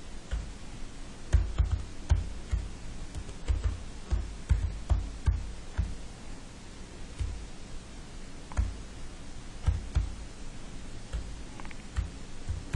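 Typing on a computer keyboard: irregular keystrokes, a few a second with short pauses, each a dull low thump.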